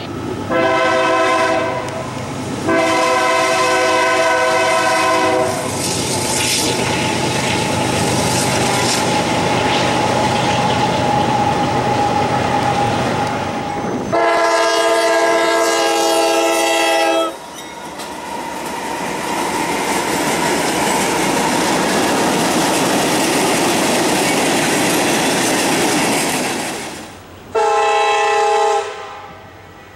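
Train horn sounding four blasts of a multi-tone chord: two near the start, a longer one about halfway, and a short one near the end. Between the blasts there is the steady rushing and rail noise of a train running by.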